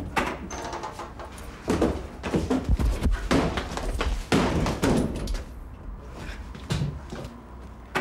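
A wooden door being kicked in: a series of heavy thuds and bangs against it, the loudest in the middle few seconds.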